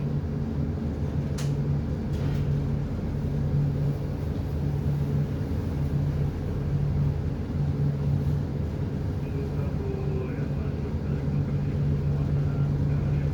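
Boat engine running steadily onboard: a deep drone whose low hum swells and eases every second or two.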